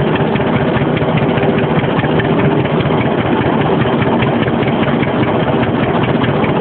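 1947 John Deere Model D tractor's two-cylinder engine running with a steady firing beat as the tractor moves along in gear.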